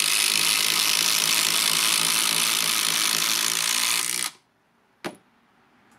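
Two HiKOKI 36V cordless impact drivers (WH36DC and WH36DB) hammering together as they drive 100 mm, 14-gauge galvanized batten screws into timber. The hammering cuts off suddenly about four seconds in as the screws seat, and a single sharp click follows about a second later.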